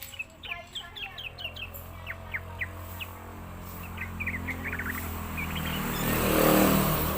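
Yellow-vented bulbul calling: quick series of short, sharp chirping notes over a low steady hum. Near the end a rushing noise swells up and becomes the loudest sound.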